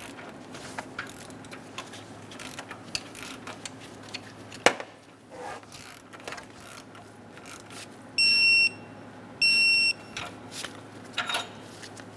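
Two short electronic beeps, about a second apart, from a digital torque wrench, signalling that the oxygen sensor has reached its set torque of 33 ft-lb. A few light clicks of the tool on the sensor come before them, the sharpest about halfway through.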